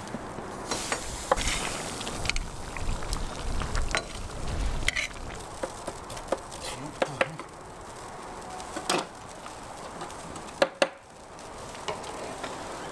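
A metal ladle stirring borscht in a large wide pan over a fire: a steady hiss under repeated clinks and scrapes of the ladle against the pan, with two sharp knocks in the last third.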